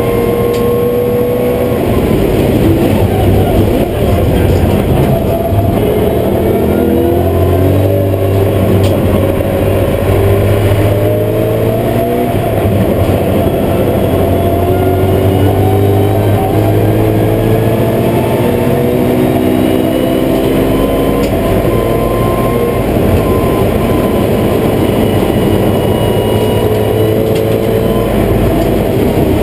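BMW M3 GT4's V8 race engine heard from inside the cockpit, accelerating in several rising sweeps through the gears, then falling in pitch as it slows near the end, over steady road and tyre noise.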